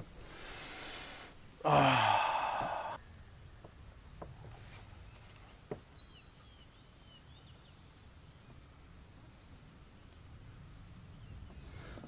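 A person's breathy, sighing "да", then quiet rainforest ambience in which a short high-pitched call repeats about every two seconds, with a few faint clicks.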